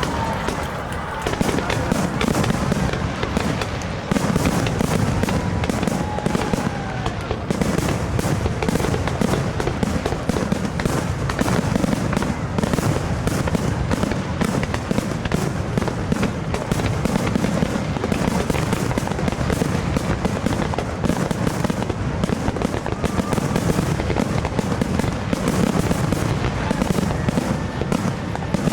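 Fireworks going off in a dense, continuous barrage of bangs and crackles, many a second, growing thicker about four seconds in.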